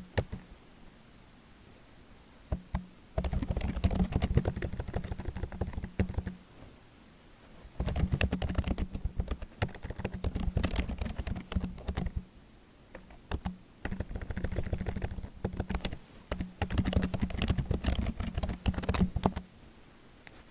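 Fast typing on a computer keyboard, dense runs of key clicks. It comes in three long bursts with short pauses between them.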